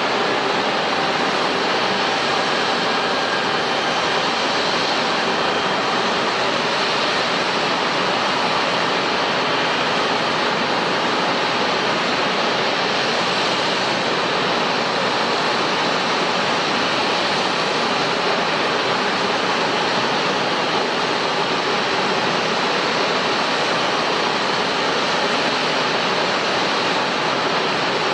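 Steady, even roar of jet engine noise, unchanging throughout, with a faint whine held underneath.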